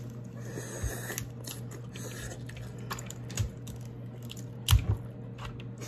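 Close-up eating of king crab: biting and chewing, with small clicks and crackles as the shell is picked apart, and one louder knock near the end.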